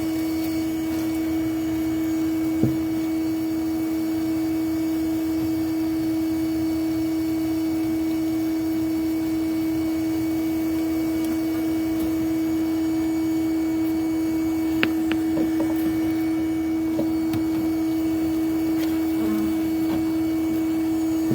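Bee vacuum running steadily, a constant motor hum, with a couple of light knocks from work on the hive.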